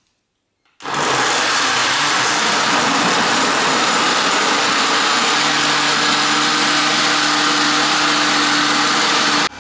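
Countertop blender switched on about a second in, its motor running loud and steady at full speed as it mixes a thick cake batter of flour, sugar, butter, eggs and milk.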